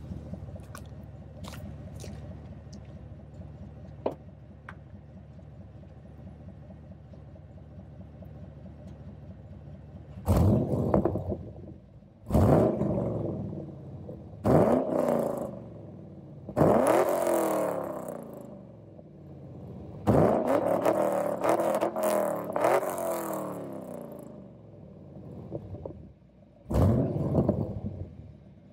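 2011 Chevrolet Camaro SS 6.2-litre V8 with headers and a full header-back exhaust, idling steadily, then revved six times from about ten seconds in. Each rev rises sharply and falls back to idle, and the two in the middle are held longer.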